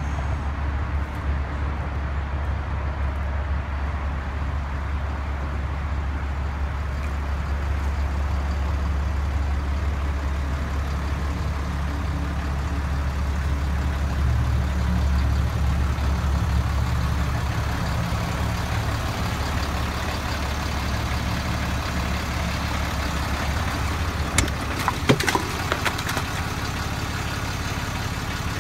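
Kenworth flatbed tow truck's diesel engine idling steadily, a low, even hum. A few sharp clicks and knocks come near the end.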